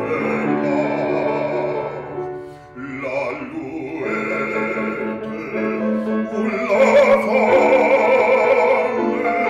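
Bass-baritone singing a French operatic aria with a wide vibrato. The voice breaks off briefly about three seconds in, then swells to its loudest on held, wavering notes in the last third.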